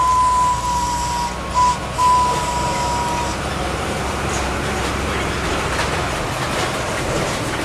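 Whistle of Orenstein & Koppel 700 mm narrow-gauge steam locomotive No. 14: one steady high note, broken briefly a few times, ending about three seconds in. After it comes the rumbling running noise of the approaching train.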